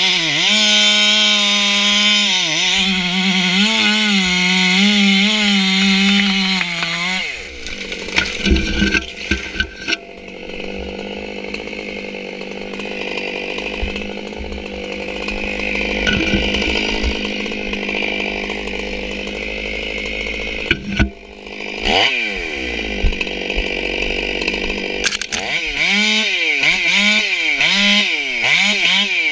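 Stihl MS 461 two-stroke chainsaw, ported with a reshaped combustion chamber, cutting at full throttle, its pitch wavering under load. About seven seconds in it drops off the throttle to idle, with a run of sharp knocks and cracks. It idles for over ten seconds with one brief rev, then goes back to full-throttle cutting near the end.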